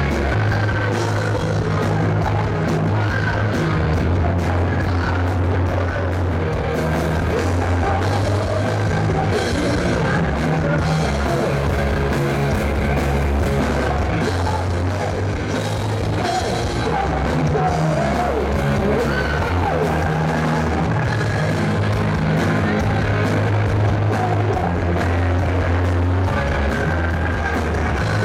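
Live rock band playing loud: electric guitars, bass guitar and drums, with a man singing near the end.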